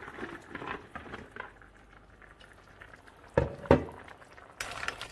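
Tomato-based crab curry simmering faintly in a pot, with two sharp knocks against the pot a little past three seconds in and a lighter one near the end.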